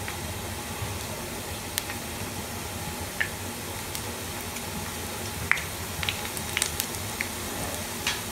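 Besan batter droplets frying as boondi in a pan of hot oil: a steady sizzle with scattered sharp clicks as batter is pressed through a perforated metal ladle with a spoon.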